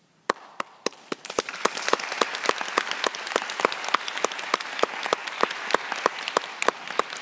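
Audience applauding: clapping starts suddenly just after the start and swells within a second or two to steady applause. Louder single claps, about three or four a second, stand out over it.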